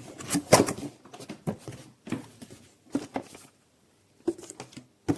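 Cardboard box and packaging being opened and handled: irregular knocks, scrapes and rustles, with a brief pause a little past the middle.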